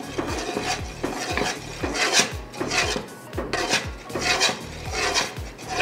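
Metal spoon stirring thick cheese grits in a large metal stockpot, scraping the bottom and sides in quick, even strokes about three a second. The continual stirring keeps the cheese from sticking and burning on the bottom of the pot.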